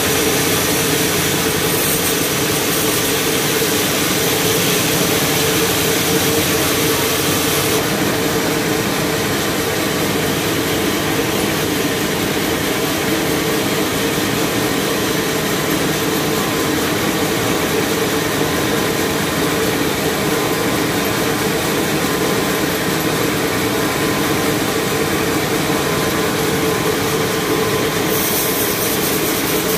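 Horizontal band sawmill running, its band blade sawing lengthwise through a large cempedak log: a steady mechanical drone with a hiss above it. The hiss drops about a quarter of the way in and comes back near the end.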